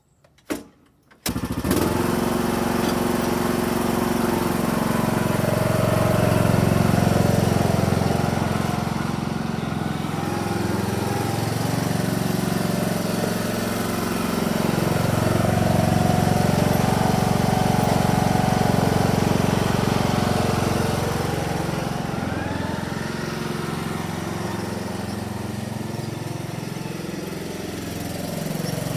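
Riding lawnmower engine running, its speed rising and falling. The engine comes in abruptly about a second in, just after a short knock.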